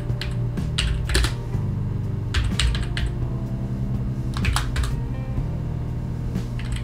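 Typing on a computer keyboard in short, irregular runs of keystrokes, over background music with a steady low bass.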